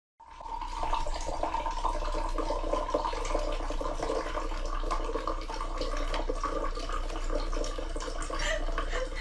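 Water running steadily, with a constant rushing sound and a low hum underneath.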